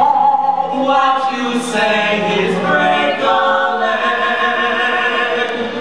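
A small group of male voices singing together in close harmony, holding long notes as a musical-theatre number.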